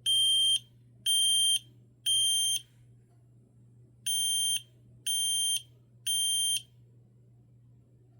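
Kidde P4010ACS smoke alarm sounding the temporal-three fire pattern: two sets of three high-pitched beeps, about one a second, with a pause between the sets. The alarm stops after the second set.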